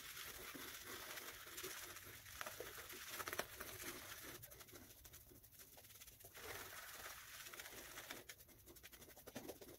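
Faint soft swishing and fine crackling of a boar-bristle shaving brush working shaving cream into a lather on the face.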